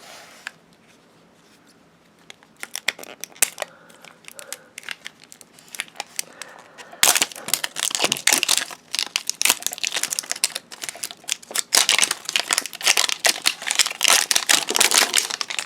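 Crinkly plastic wrapping of LOL Surprise doll pieces being handled and torn open: scattered crackles at first, then continuous crinkling from about halfway in.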